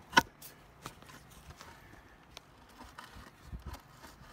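Footsteps and handling noise as a wooden post is carried to its hole: one sharp knock about a quarter second in is the loudest sound, followed by scattered light clicks and a few dull thuds near the end.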